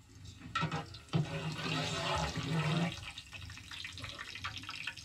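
Water poured from a bowl into a plastic bucket of liquid, a steady splashing pour for about two seconds, then lighter sloshing.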